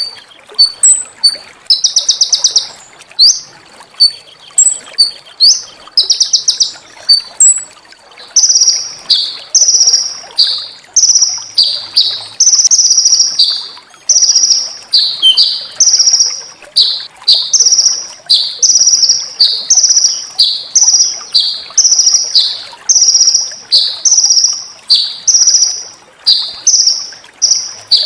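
Small songbird song. About eight seconds of rapid, buzzy high trills with sharp clicks between them, then a steady series of high, downslurred notes, each falling in pitch, repeated about one and a half times a second.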